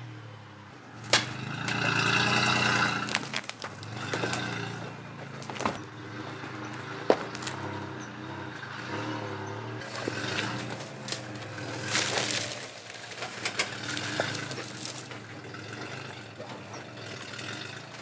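Toyota Tundra pickup crawling slowly over a rocky trail: the engine runs at low revs while the tyres crunch over loose rock. Sharp knocks of stone stand out, the loudest about a second in and again about seven seconds in.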